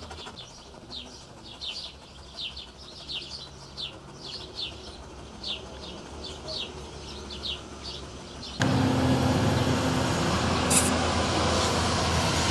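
Small birds chirping over and over in short, falling chirps. About eight and a half seconds in, the sound cuts abruptly to a louder, steady rushing noise with a faint low hum.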